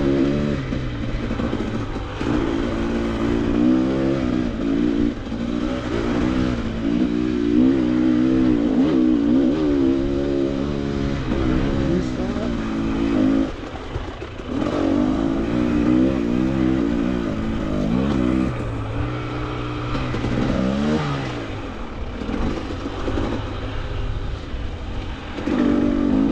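Dirt bike engine running under the rider's throttle on rough single-track, its revs rising and falling constantly. It drops off briefly about halfway through, runs lower and steadier for a few seconds after that, and picks up again near the end.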